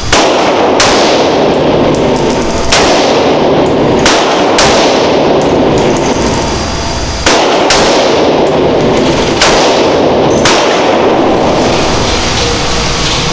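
Diamondback DB15 Diamond Series AR-15 rifle in 5.56 NATO firing single shots, about eight of them at uneven intervals a second or two apart. Each sharp report rings on in the reverberation of an indoor shooting range.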